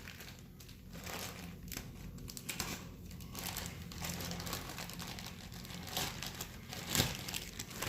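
Packaging crinkling and crumpling in irregular rustles as a new replacement part is unwrapped and handled, with a sharper click about seven seconds in.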